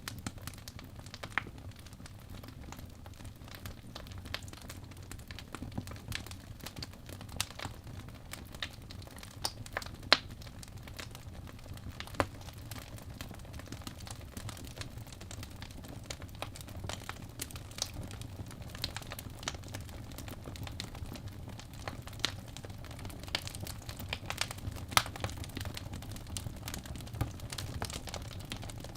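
Wood fire in a fireplace crackling: irregular sharp pops and snaps over a low, steady rumble of the flames, with a couple of louder pops near the middle.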